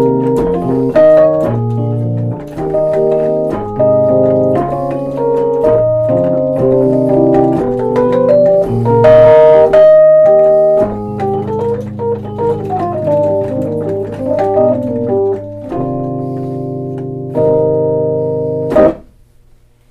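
Rhodes 73 suitcase electric piano played through its built-in amplifier: sustained chords changing every second or so, with quick rising and falling runs in the middle. A last chord cuts off sharply about a second before the end.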